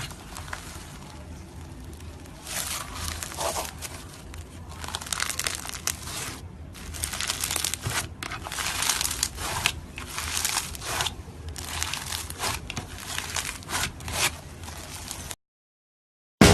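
Slime being squeezed and stretched by hand, making irregular crackling, squelching bursts. It stops abruptly about a second before the end.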